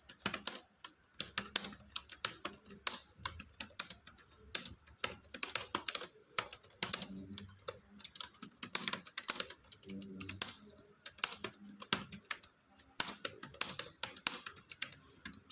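Fast touch-typing on a computer keyboard: a rapid, irregular stream of keystrokes with only brief pauses, as in a timed speed test.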